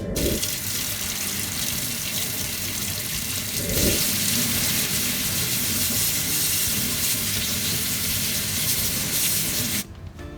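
Water running steadily. It gets louder about four seconds in and stops suddenly near the end.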